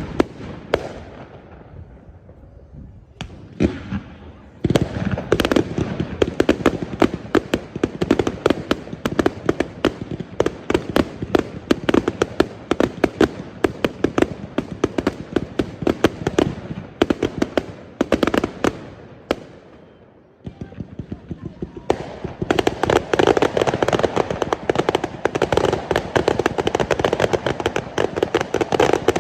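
New Year fireworks going off: a few separate bangs, then a long dense run of rapid cracks and bangs, a brief lull about two-thirds of the way through, and another dense barrage of crackling near the end.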